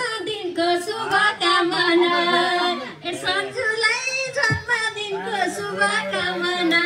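A group of people singing together, women's voices most prominent, with no instruments behind them.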